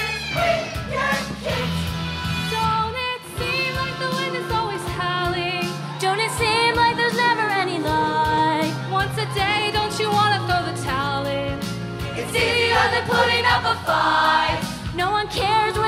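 High school show choir singing with instrumental accompaniment: two female soloists lead at microphones over the full choir, with a bass line and a steady beat underneath.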